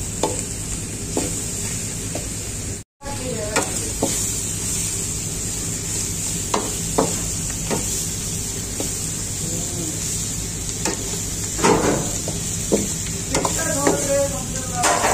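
Pork and green peppers sizzling in a hot wok while a metal ladle stirs them, scraping and knocking against the pan many times. The sound cuts out for an instant about three seconds in.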